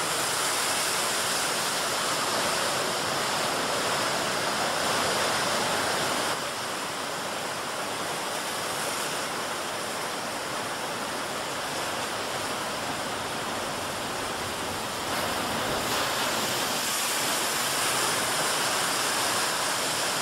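Heavy surf and churning water: a continuous rush of breaking waves, a little quieter from about six seconds in and louder again from about fifteen seconds in.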